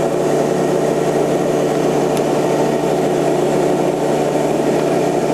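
Ruwac WNS/WS Series industrial vacuum running steadily with its inlet sealed off by a cardboard sheet held on by suction, giving an even motor hum.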